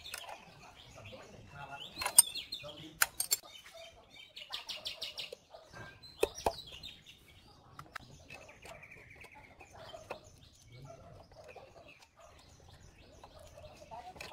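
Sharp metal clinks and taps of a wrench and parts on a small engine's cylinder head as the valves are set and the rocker cover is fitted, the loudest a few between two and three seconds in and again at about six seconds. Birds chirp in between, with a rapid run of chirps near five seconds and a short trill near nine seconds.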